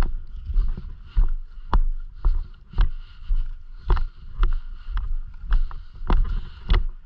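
Footsteps of a person walking at a steady pace, about two steps a second, each step a dull thump with a light knock.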